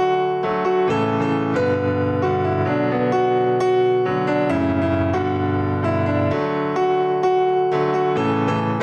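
Background piano music, notes struck one after another over a shifting bass line.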